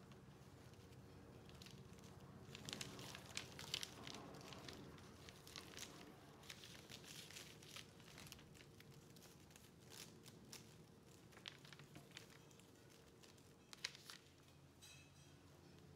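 Clear plastic wrap and flower stems crinkling and rustling under the hands as jute twine is wound and tied around a bundle of stems: soft irregular crackles, busiest a few seconds in, with one sharper crackle near the end, over a faint steady hum.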